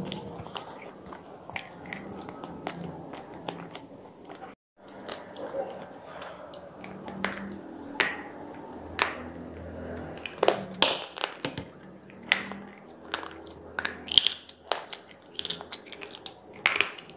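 Square pieces of slate being bitten and chewed close to the mouth: sharp, dry cracks and crunches, one at a time at first and coming thick and fast in the second half. A brief total dropout about four and a half seconds in.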